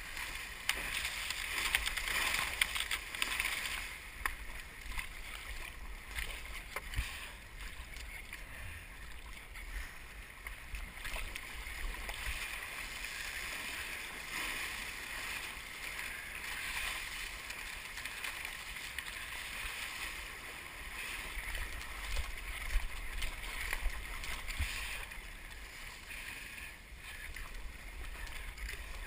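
Water rushing and splashing along the hull of an Epic V10 Sport surfski being paddled through rough, choppy ocean swell, with wind noise on the microphone.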